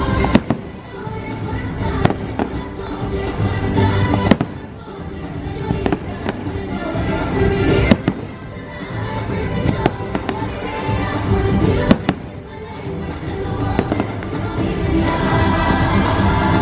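Fireworks shells bursting with sharp bangs about every two seconds, over loud orchestral show music played through loudspeakers.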